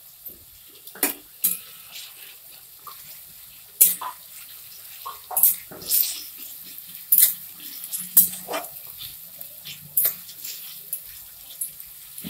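A spatula scraping and knocking against a kadai as onions and garlic paste are stirred in hot oil, in irregular strokes over a steady faint sizzle.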